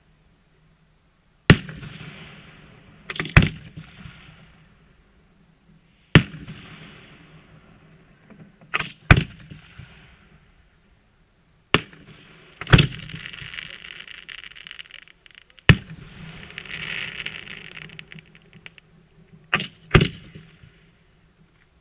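Aerial fireworks going off: about ten sharp, loud bangs at irregular intervals, some in quick pairs, with a hissing trail after several of them.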